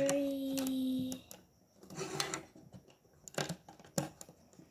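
Plastic Lego bricks clicking and knocking as they are handled and pressed onto a build, in several separate sharp clicks. It is preceded by a held voice sound of about a second at the start.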